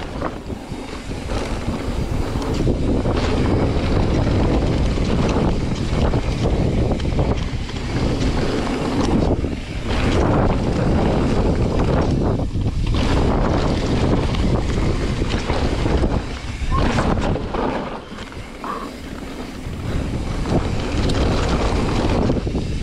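Wind buffeting the microphone and mountain bike tyres rolling over a dirt trail during a fast downhill ride, a loud steady rumble that eases briefly a few times.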